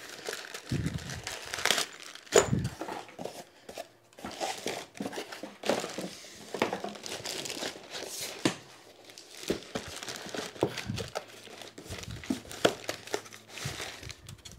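Packaging being unwrapped: continuous irregular crinkling and rustling as parts are taken out, with scattered knocks and a sharp loud knock about two and a half seconds in.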